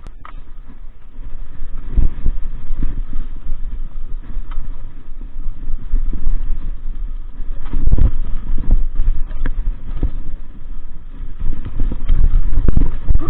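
Mountain bike rattling and clattering over a rough dirt and stone trail on a descent, with a heavy rumble on the camera's microphone. The noise swells loudest about two seconds in, around eight seconds in and near the end.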